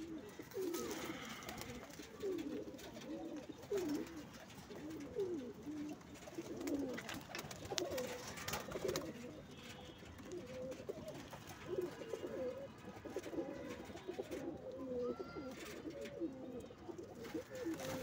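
A flock of domestic pigeons cooing, many low coos overlapping without pause, with occasional sharp clicks among them.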